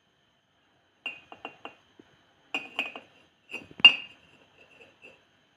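A metal spoon clinking against a mug as dry mug-cake ingredients are stirred, about nine sharp clinks in three groups, each with a short ring, the loudest a little before four seconds in.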